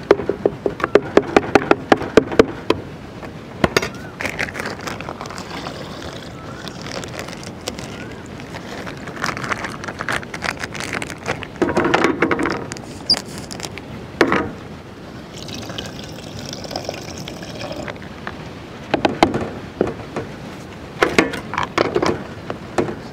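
Metal ice-cream scoop knocking against the rim of a plastic blender jar as ice cream is scooped in, a quick run of sharp knocks at the start and short clusters of knocks and scrapes after. Near the end comes a cluster of clicks as the blender lid is pressed on.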